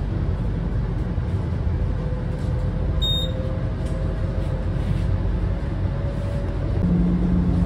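Vehicle running noise: a steady low rumble with a faint whine, a brief high beep about three seconds in, and a low hum coming in near the end.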